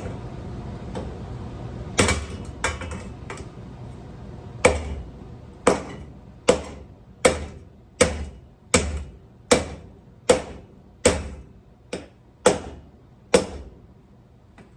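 A ceiling fan being struck hard again and again. A few blows land about two seconds in, then a steady run of blows comes a little more than once a second, each with a short ring, and stops near the end.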